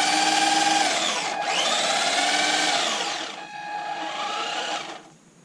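Electric drive motor and gearbox of a 1:12-scale four-wheel-drive RC truck whining as its wheels spin freely in the air. The throttle is eased up and down, so the pitch rises and falls about three times, showing fully proportional throttle control. It stops a little before the end.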